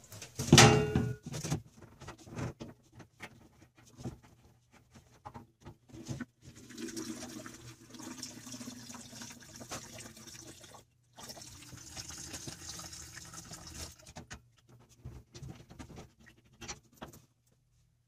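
Water running and splashing at the water heater's plumbing fittings, in two stretches of a few seconds each, with scattered clicks and knocks of hands and fittings and one loud clank near the start.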